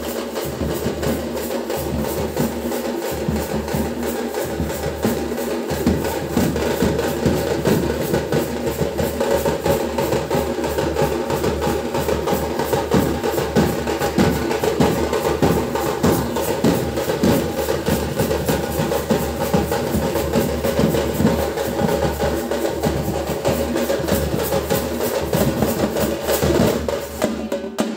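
Drums playing fast, continuous beats together with other music.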